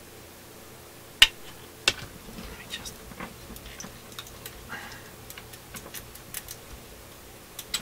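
Wire cutters snipping the leads of an old capacitor to cut it out of a tube radio chassis: two sharp snips about a second and two seconds in, then a run of light clicks and rustling of wires and parts.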